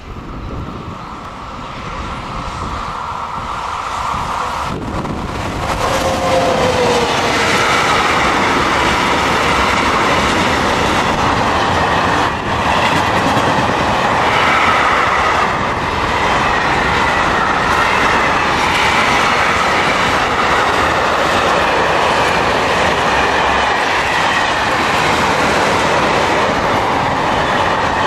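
Freight train of car-carrier, tank and open wagons passing close by at speed. A steady high tone is heard for about the first five seconds while the train approaches, and the noise grows louder. From about seven seconds in, the wagon wheels give a loud, steady rolling noise on the rails.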